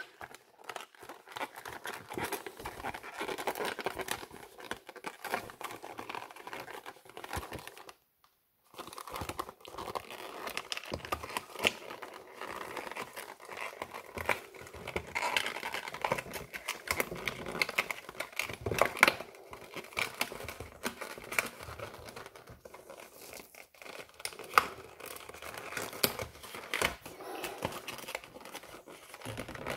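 Cardboard product box being handled and pried open at its glued flap: continuous crinkling, scraping and small tearing sounds, with a brief silent gap about eight seconds in.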